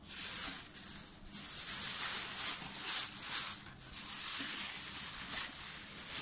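Packaging being handled and unwrapped: continuous crinkling rustle with several sharper crackles, typical of plastic wrapping.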